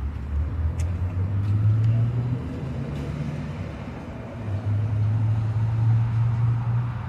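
Low hum of a motor vehicle's engine, which swells twice: over the first couple of seconds and again from about the middle to near the end. A few faint ticks come in the first three seconds.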